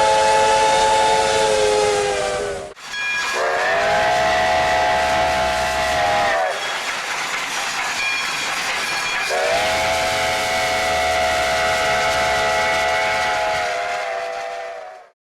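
Train chime whistle sounding a chord of several notes in three long blasts, each sliding a little in pitch as it starts and stops, with a steady hiss of steam between blasts.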